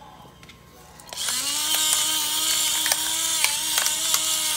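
Battery-powered electric pepper mill grinding peppercorns, starting about a second in: a steady motor whine with a gritty hiss and small crackling clicks.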